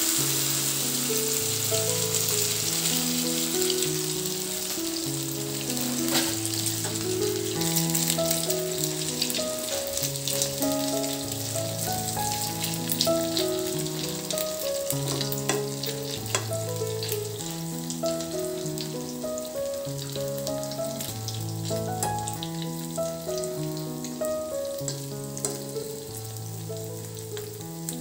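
An egg and Maggi noodle mixture sizzling as it fries in hot oil in a nonstick pan, loudest at first and settling down, with a utensil clicking against the pan now and then as it is stirred. Soft background music plays underneath.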